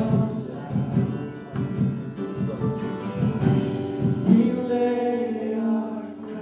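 Music with singing: a sung melody over accompaniment, with a long held note from about four seconds in.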